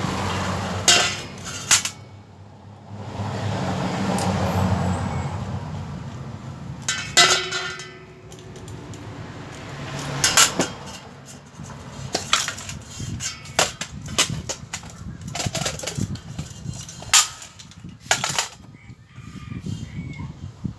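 Small metal parts and tools clinking and knocking as a motorcycle carburetor is taken apart and cleaned, with two stretches of rushing noise near the start and a few seconds in.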